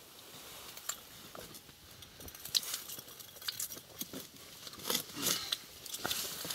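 Scattered small clicks, knocks and rustles of hands handling ice-fishing rods and gear on the ice, with sharper clicks from about two and a half seconds in and a cluster about five seconds in.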